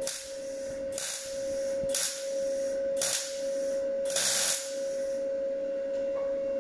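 MIG welder stitch-welding in short bursts, about one a second, filling holes in the thin, rusted steel sill of a Ford Transit. The bursts stop about five seconds in. A steady tone runs underneath.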